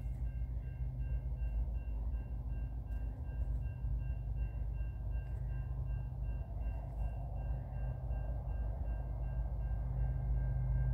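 A railroad crossing bell rings in rapid, evenly spaced strokes. Under it is the steady low rumble of an approaching pair of CN diesel locomotives, an SD75I and an SD70M-2, with rail and wheel noise building from about halfway through.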